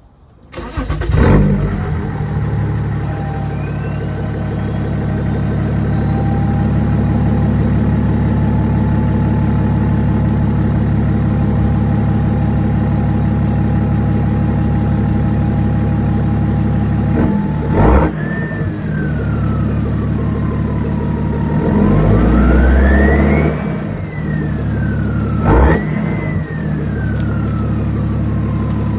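Straight-piped BMW 335d twin-turbo inline-six diesel starting about half a second in and settling into a steady idle, with a thin turbo whistle over it. Near the end it is blipped three times; each time the whistle rises sharply and then slowly falls away as the turbos spool down.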